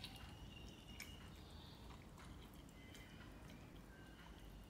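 Near silence: faint room tone with a few soft clicks.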